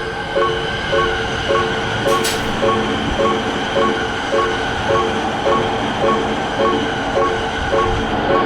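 Japanese level-crossing warning bell ringing its electronic clang about twice a second, while a train passes with a steady rumble of wheels on rail. There is a brief high hiss about two seconds in.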